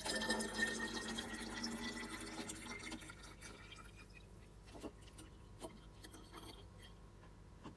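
Liquid poured from a plastic measuring jug into a plastic bottle, the filling sound rising slightly in pitch as the bottle fills. The pour trails off about three seconds in, followed by a few small clicks.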